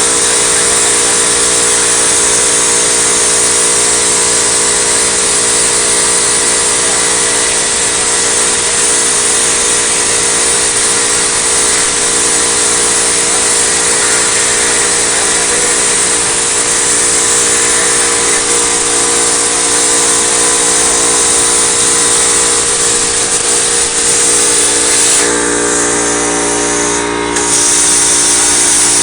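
Homemade CNC plasma cutter cutting metal plate: a loud, steady hiss of the plasma arc and air, with a steady multi-tone hum beneath. About 25 seconds in the hiss changes briefly, then carries on.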